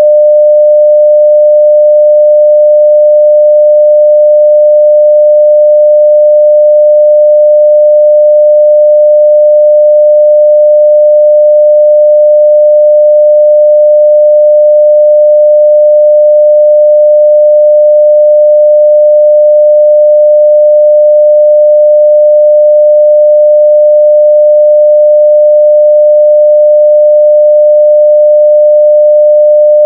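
A pure 600 Hz sine-wave test tone at full level (0 dBFS), held steady without change.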